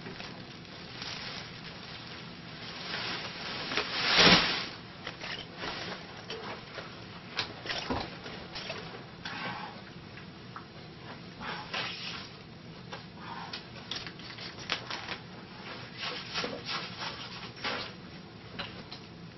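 Irregular rubbing and scraping noises, short and uneven, with one louder swish about four seconds in.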